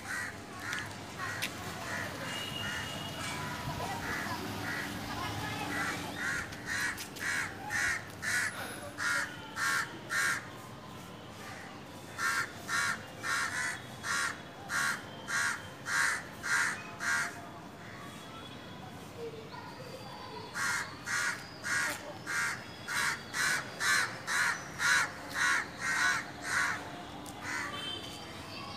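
Birds giving harsh, caw-like calls in three bouts of quick repeats, about two to three calls a second.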